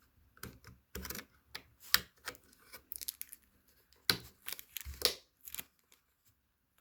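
A DDR4 SO-DIMM RAM stick being pushed into a mini PC's memory slot: a run of sharp plastic-and-metal clicks and small scrapes, the loudest a few seconds in. The click is the sign that the module has seated and latched correctly.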